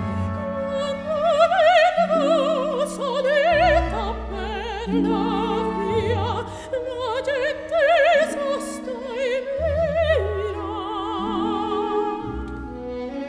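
Operatic soprano singing a slow melody with wide vibrato over sustained orchestral chords.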